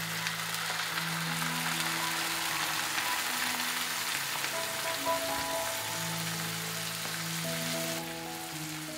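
A cup of water poured into a hot, oily pan of browning chicken thighs and vegetables, setting off a steady hissing sizzle that eases slightly near the end.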